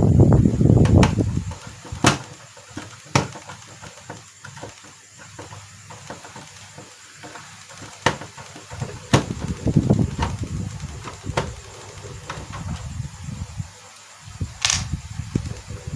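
Bench handling of a projector being taken apart: scattered sharp clicks and light knocks of plastic parts, with low bumping and rubbing near the start, around ten seconds in and again near the end.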